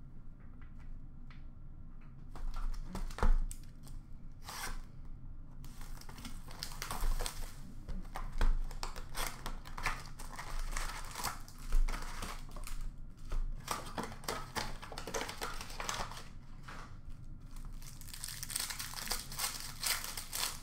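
Plastic hockey card pack wrappers being torn open and crinkled by hand. The crinkling starts about two seconds in and goes on in irregular bursts, with a few sharp, louder rips.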